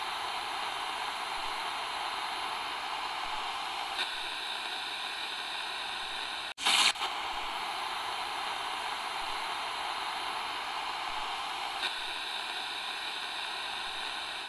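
Steady hiss of static noise. About six and a half seconds in it cuts out for an instant, then gives a short louder burst.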